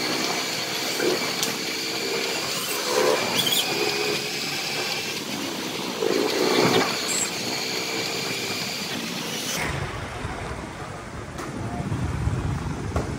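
Busy street noise with indistinct background voices and traffic. About ten seconds in it cuts to a steady low rumble, like riding in a vehicle.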